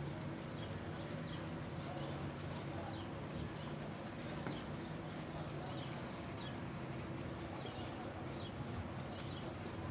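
Horses walking on soft arena dirt, their hoofbeats faint, irregular clip-clops over a steady low hum. Short high chirps sound every second or so.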